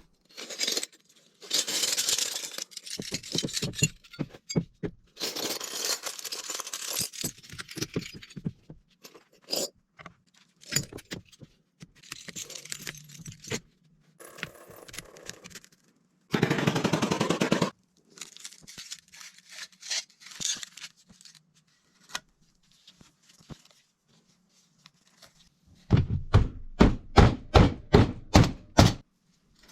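Workshop work sounds cut together in short bursts: scraping and clattering, a brief steady machine run just past the middle, and near the end a quick run of about ten heavy strikes.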